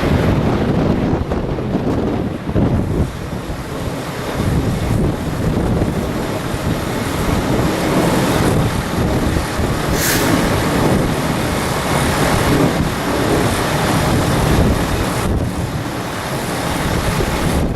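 Strong gusting wind buffeting the microphone, a loud, uneven rumble that rises and falls, with a short hiss about ten seconds in.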